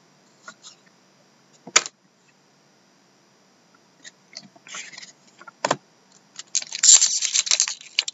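Trading cards and their packaging being handled: a few separate clicks and taps, then from about six and a half seconds in, dense crinkling and rustling of plastic or foil wrapping.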